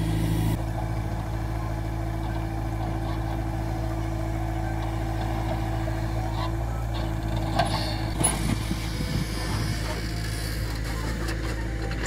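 Diesel engine of a backhoe loader running steadily at idle, a constant low hum. A few faint knocks come about eight seconds in.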